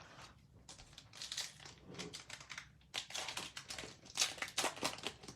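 Plastic wrapper of a trading card pack crinkling in the hands as the pack is handled and opened, in irregular crackly bursts that get louder after about a second.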